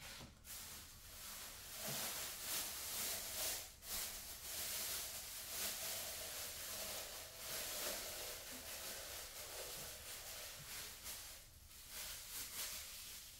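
Soft, irregular rustling and handling noises as things are moved about on a shelf, over a faint steady hum.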